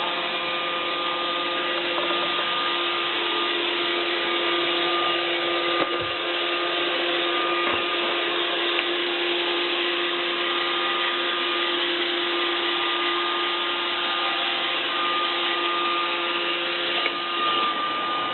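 iRobot Roomba 520 robot vacuum running: a steady whirr of its vacuum motor and brushes, with a few steady whining tones over it. There are a couple of brief knocks around the middle.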